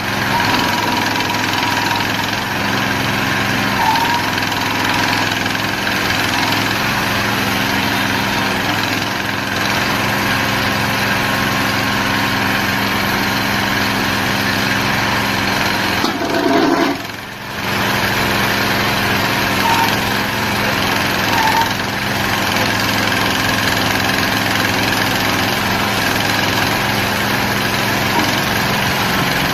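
Small engine of a towable mini excavator running steadily while the boom and bucket are worked. The engine sound briefly drops away a little over halfway through.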